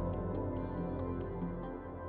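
Soft ambient background music of held tones, with faint ticks scattered through it.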